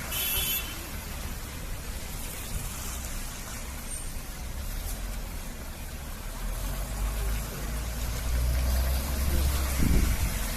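Low rumble of a motor vehicle's engine, growing louder through the second half, with a brief hiss at the very start.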